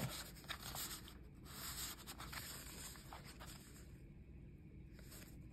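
Faint rustling and light scraping of paper as journaling cards are handled and a journal page is turned, quieter near the end.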